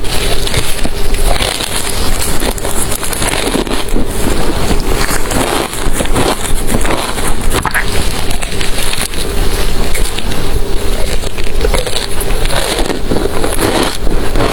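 Ice being chewed and crunched close to the microphone: a loud, continuous run of dense crackling crunches.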